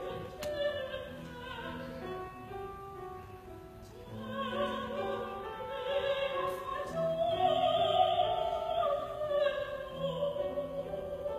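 Operatic singing by choir voices with instrumental accompaniment. It is softer for the first few seconds, grows louder from about four seconds in, and has a long held note a little past the middle.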